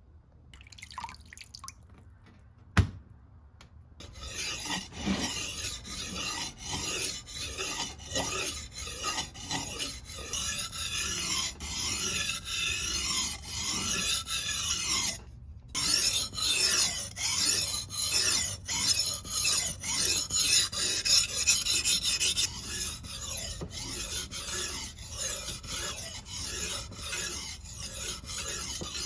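Steel knife blade, forged from a lawn mower blade, scraped by hand against an abrasive in repeated back-and-forth strokes, about one and a half a second, with a brief pause partway through. A single sharp click comes before the strokes begin.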